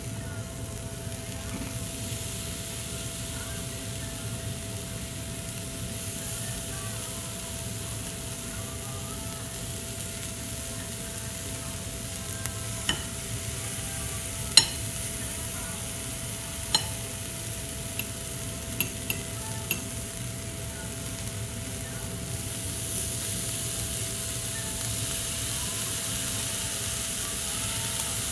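Beef kalbi sizzling on a tabletop yakiniku grill: a steady frying hiss, with several sharp clicks or pops in the middle stretch and the hiss growing a little louder near the end. A faint steady hum runs underneath.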